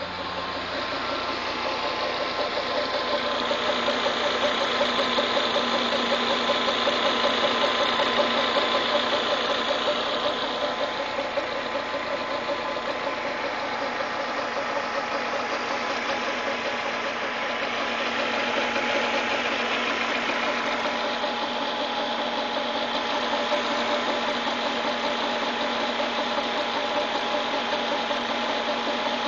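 VW Polo 6N2's 1.6 four-cylinder petrol engine running with a fast, even knocking in its note: the weird noise the owner is trying to pin down. It swells louder for several seconds, then eases.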